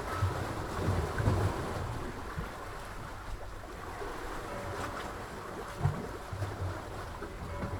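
Sea waves washing with wind, and low rumbling gusts of wind buffeting the microphone about a second in and again near six seconds.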